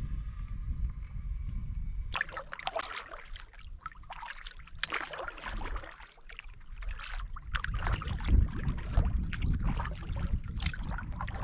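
Water splashing and trickling around a canoe, as a paddle dips and drips, in irregular strokes starting about two seconds in, over a steady low rumble.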